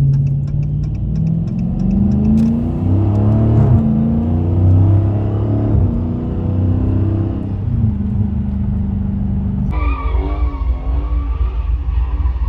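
A car engine accelerating hard, its pitch climbing and falling back several times. About ten seconds in the sound changes suddenly to a rougher, wavering engine note.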